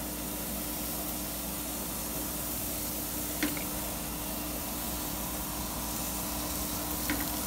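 Barbecue grill hissing steadily as marinated pork chops are laid on the hot grate, with a faint steady hum underneath. Two small clicks, about three and a half seconds in and near the end.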